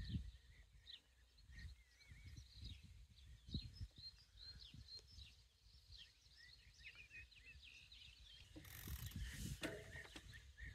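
Faint birdsong: several small birds give a busy run of short chirps and whistles over a low rumble, with a brief rustle about nine seconds in.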